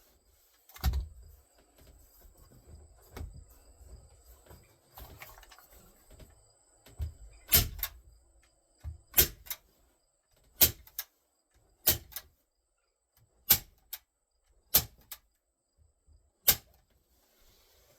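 A staple gun firing staples through carpet into a wooden rail: a sharp snap once near the start, then about seven more, one every second and a half or so, with faint handling rustle between.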